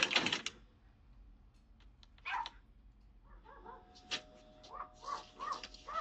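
A short loud clatter right at the start, then a dog barking and yipping in short calls about every half second through the second half, picked up by a doorbell camera's microphone.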